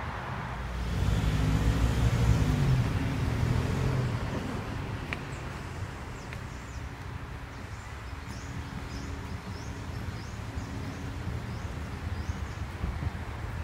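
A car drives past, loudest about one to four seconds in, its engine pitch bending as it goes by. A fainter steady engine hum follows, with faint high bird chirps.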